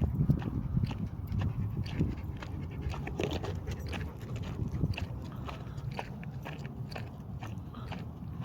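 Footsteps crunching on a trail at a steady walking pace, about one step every two-thirds of a second, over a low rumble.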